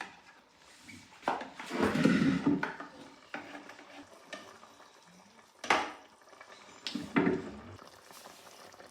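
A spoon knocking and scraping against a cooking pot as pounded cocoyam paste is added to the soup: a few sharp knocks, with a longer scraping clatter about two seconds in.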